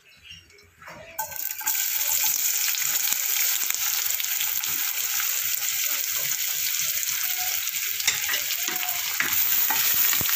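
Sliced onions dropped into hot oil in a non-stick kadai, bursting into sizzle about a second in and then frying with a steady sizzle. A wooden spatula stirs them near the end, with a few light clicks against the pan.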